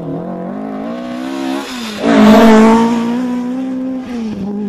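Ford Escort Mk2 rally car's engine at full throttle as the car accelerates past, the note climbing and then breaking briefly for a gear change. The engine is loudest about two seconds in as the car goes by, holds a high steady note, then drops away near the end as the driver lifts off.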